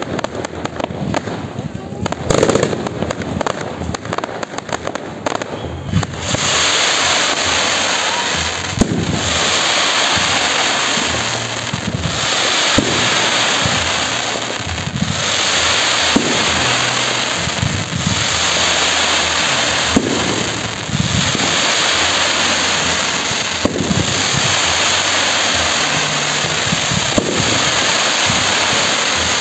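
Fireworks display: a rapid volley of sharp bangs and crackles, then about six seconds in a dense, continuous crackling hiss sets in, cut through every couple of seconds by a sharper bang.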